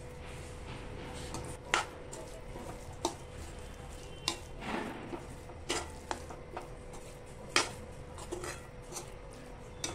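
Metal spatula stirring and scraping in a metal kadai, giving irregular clinks and scrapes against the pan, the sharpest about two seconds in and again near the end; a faint steady hum lies underneath.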